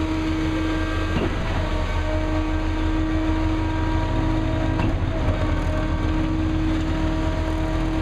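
Diesel engine of a concrete boom pump truck running steadily under load during a concrete pour, with a faint knock every three to four seconds.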